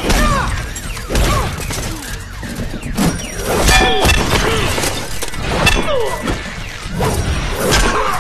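Cartoon fight sound effects: a rapid string of hits, crashes and thuds with swooping, gliding tones between them, over a dramatic music score.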